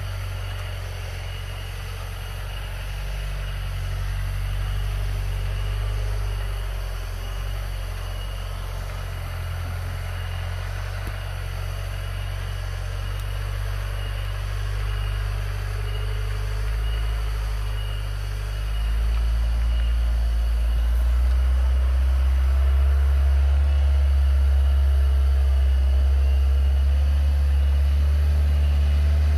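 Engine of a modified 1980s Toyota Land Cruiser hardtop jeep running steadily at low revs. About two-thirds of the way through it grows louder and deeper, as if working harder.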